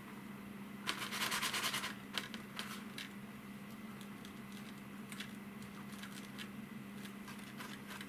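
Quick scrubbing strokes of a cloth rubbing polishing compound on a plastic model kit's surface for about a second, then scattered light scratches and clicks.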